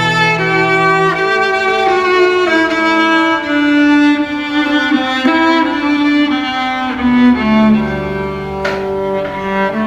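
Bowed string music: violins carry a slow melody of held notes over lower strings, and a deeper bass note comes in about seven seconds in.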